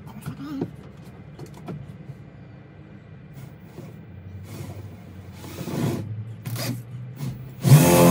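Light handling rustles and faint knocks, then near the end a handheld power drill starts up with a loud, steady whine, its bit pressed against wooden ceiling boards.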